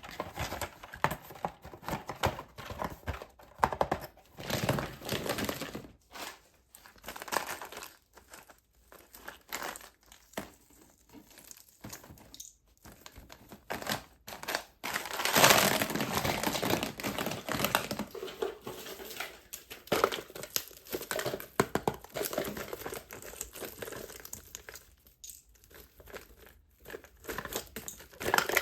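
Candy and toy wrappers crinkling and rustling as they are handled and unwrapped by hand, in irregular bursts with short pauses. A louder stretch of crinkling comes about halfway through.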